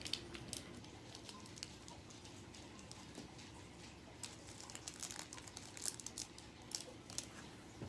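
Faint crinkling with scattered light clicks as sequins are shaken out of their packaging into the slime.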